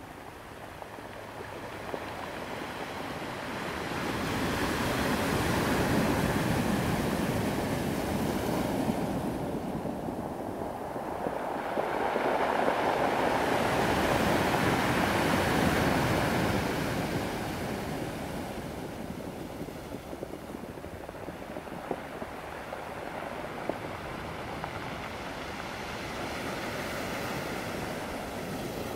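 Ocean surf breaking and washing in, rising and falling in slow swells: it grows louder about four seconds in and again from about twelve to seventeen seconds, then settles into a quieter, steady wash.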